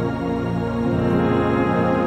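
Soft background music with sustained notes that change about a second in.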